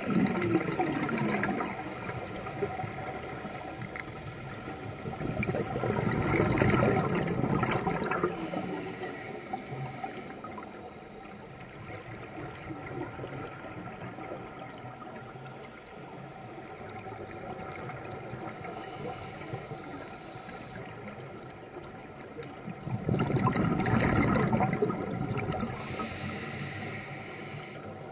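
Scuba diver's exhaled breath bubbling out of a regulator underwater, three bursts of two to three seconds each, with a steady faint hiss between them.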